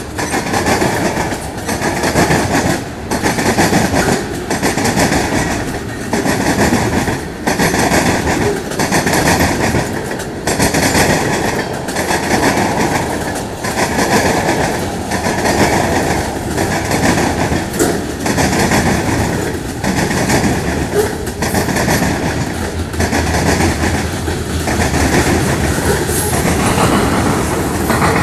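Norfolk Southern mixed freight train's cars (tank cars and covered hoppers) rolling past: steel wheels clacking rhythmically over rail joints over a steady rolling rumble.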